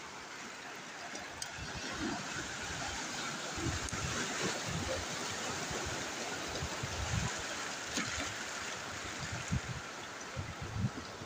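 Sea surf washing and swirling over a rocky tidal shelf, a steady wash that swells in the middle, with irregular low thumps underneath.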